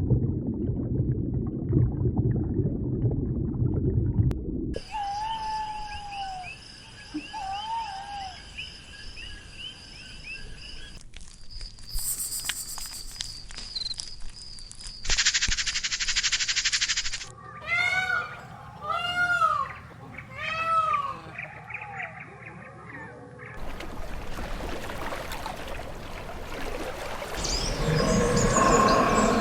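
A string of short spliced animal-sound clips: a low rumbling stretch, then whistled calls and chirps, then a run of repeated arching calls, ending in a steady hiss of outdoor ambience.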